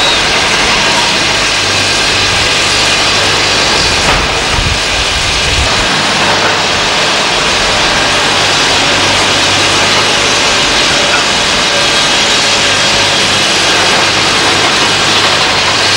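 Heavy diesel engines running steadily: a crawler excavator at work and a loaded dump truck pulling away under load. A deeper rumble swells briefly around four to five seconds in.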